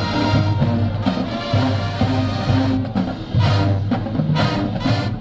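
College marching band playing: brass section holding low notes over a steady drum beat.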